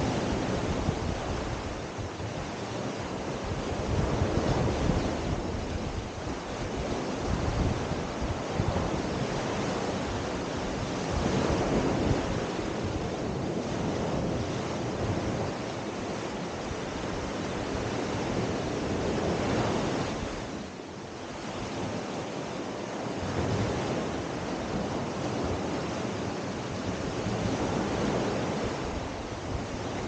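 Small sea waves breaking and washing up a sandy beach: a continuous wash of surf that swells and eases every few seconds.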